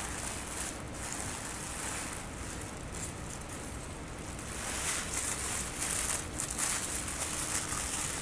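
Thin white packaging wrap crinkling and rustling as it is pulled from a box and handled, louder in the last few seconds.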